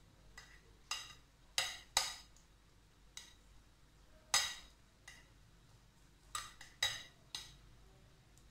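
Metal spoon scraping and tapping against a glass baking dish as mashed potato is spread in it: about nine short ringing clinks at uneven intervals, the loudest about four seconds in.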